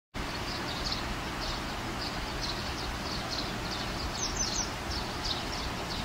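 Budgerigars chirping: short high chirps about twice a second over a steady hiss, with a quick run of three higher chirps a little past the middle.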